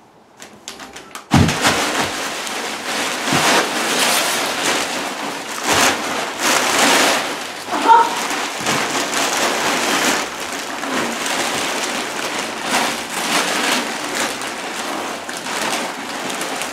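Wrapping paper crinkling, rustling and tearing in a dense, continuous crackle as it is ripped and tossed about, starting suddenly about a second in. A brief squeak sounds near the middle.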